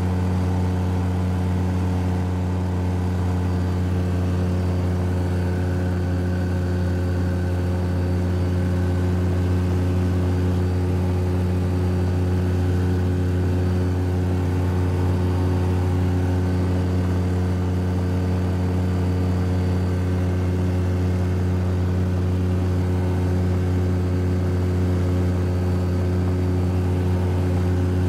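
Valdai light aircraft's engine and propeller droning steadily in the cabin during climb-out.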